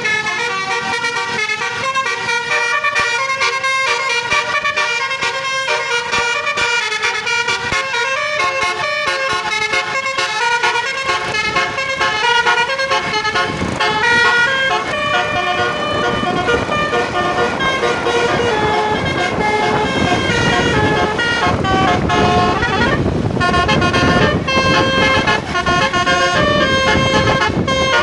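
Bus basuri telolet horn playing a tune as a quick run of short tooting notes. A steady rushing noise builds up underneath from about halfway.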